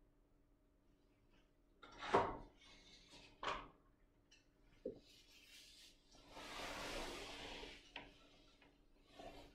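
A person shifting on a tiled floor: two knocks about a second apart, a small tap, then a rustle of clothing rubbing against the floor for about a second and a half, and another light tap.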